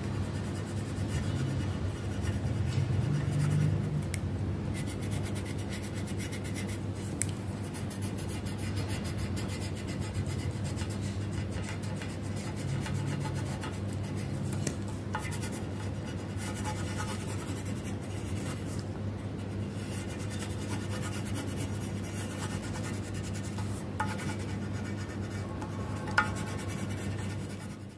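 Orange coloured pencil scratching rapidly back and forth on paper as it shades in an area, over a steady low hum, with a couple of sharp ticks.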